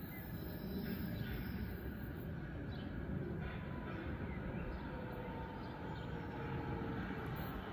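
Berlin S-Bahn electric train approaching: a steady low rumble, with a faint motor whine coming in during the second half. A few faint bird chirps sound in the first half.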